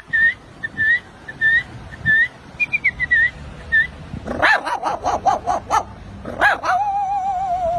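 A man's voice imitating a dog: a quick run of yelping barks about four seconds in, one more yelp, then a long wavering howl. Before that, short high chirps repeat about twice a second.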